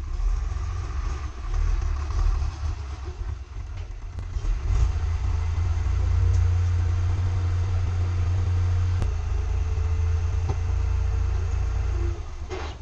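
Diesel farm tractor's engine running with a low rumble, louder from about halfway as its hydraulic lift tips a loaded trailer, with a steady whine under it while the bed rises.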